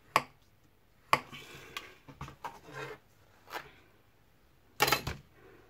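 Handling noises from cardstock and a plastic scoring board: a few sharp clicks and a short papery rustle, then a loud clatter about five seconds in as the scoring board is moved and set down.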